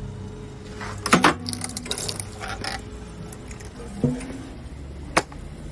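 Hydraulic log splitter splitting wood: a burst of loud cracks and splintering about a second in, further snaps, a knock and one sharp crack near the end, over the steady low hum of the machine's power unit.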